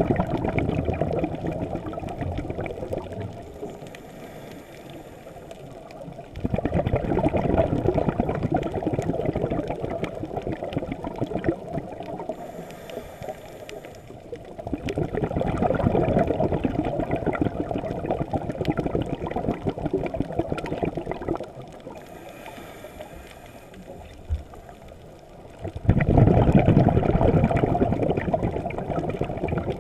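Underwater rushing and gurgling of water, heard through a camera's waterproof housing. It swells and fades in long surges about every ten seconds.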